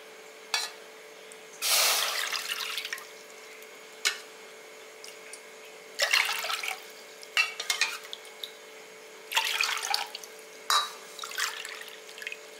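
Water poured from a cup into an empty aluminium pressure-cooker pan in several short, splashing pours. There are a couple of light knocks between the pours.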